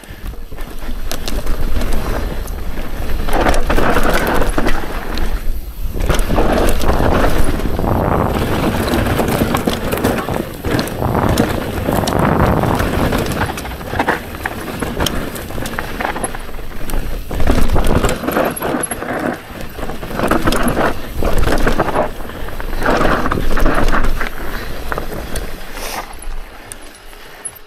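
Mountain bike descending a rough dirt trail, heard from the rider's action camera: tyres rolling over dirt and roots, the bike rattling and knocking over bumps. The noise surges and dips in loudness all the way through.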